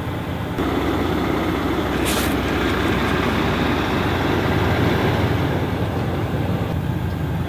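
Steady rumble of a vehicle engine running, with a brief hiss about two seconds in.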